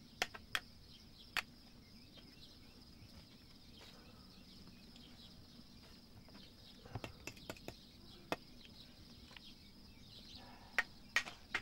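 Sharp clacks of fired clay bricks being knocked and tapped into place on a mud-mortared brick arch: three near the start, a cluster about seven seconds in, and a few more near the end. A steady high insect chirring runs underneath.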